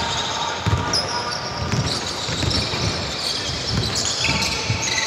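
A basketball being dribbled on a court, a low thump about every two-thirds of a second, over steady high-pitched tones.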